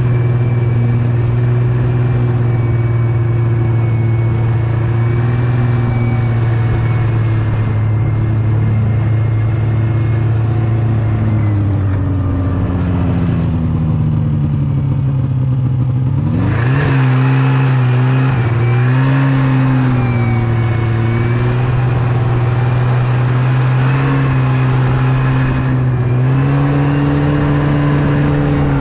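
Yamaha Venture snowmobile engine running under way at a steady pitch, dropping gradually for a few seconds around the middle as the throttle eases off, then quickly picking up again and holding steady.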